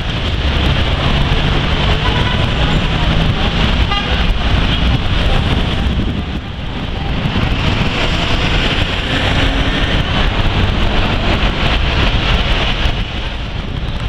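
Downtown street traffic at a busy intersection: city buses and cars running past in a steady, dense wash of engine and road noise, easing briefly about six seconds in.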